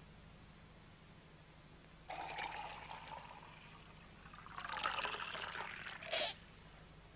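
Wine pouring from a cask's tap into a cup, in two spells: one starting about two seconds in and lasting a second and a half, then a longer one from about four and a half seconds in that ends in a short louder burst.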